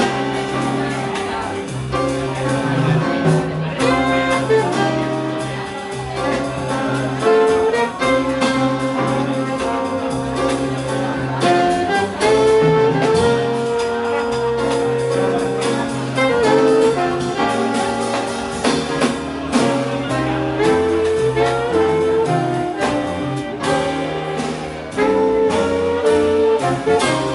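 Small jazz band playing live: saxophones and trombone holding the melody in ensemble over double bass, drums and piano.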